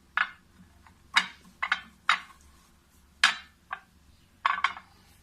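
A spoon clinking against a small dish, about ten separate light clinks at irregular spacing, a few of them in quick pairs.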